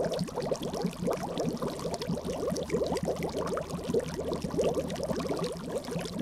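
Continuous rapid bubbling of liquid, a boiling-cauldron sound effect.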